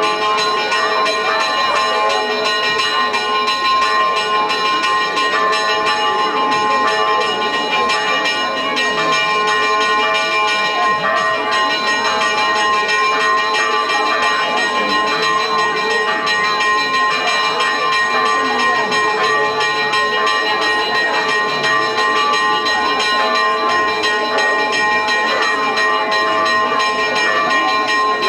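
Church bells ringing continuously, their overlapping strokes leaving steady tones hanging in the air, with voices underneath.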